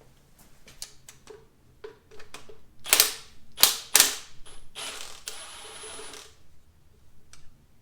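Metal hand tools clicking and clanking while work starts on removing the turbo: scattered clicks, three sharp metallic knocks between about three and four seconds in, then a rapid rattling for a second or so.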